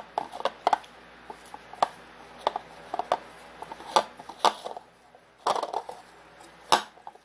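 A kitchen utensil knocking and scraping in a bowl while stirring a thick cheese filling, in irregular clicks and knocks.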